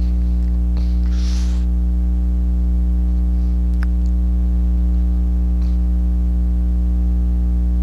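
Steady electrical mains hum with a stack of overtones, unchanging throughout, with a faint breath-like puff about a second in and a small click near four seconds.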